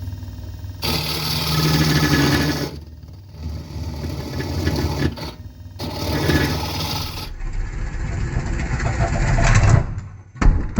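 Wood lathe spinning a yellow cedar and walnut bowl blank while a carbide turning tool cuts it in repeated passes: several seconds-long bursts of cutting noise over the steady hum of the lathe. A few sharp knocks come near the end.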